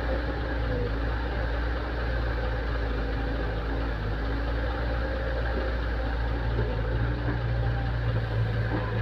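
Excavator engine running steadily with a deep hum, growing a little louder near the end.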